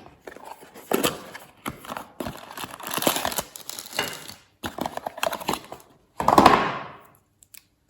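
Packaging being handled as an inductive hearing-aid charger is taken out of its box: irregular clicks, taps and short rustles of cardboard and plastic, with a longer, louder rustle about six seconds in.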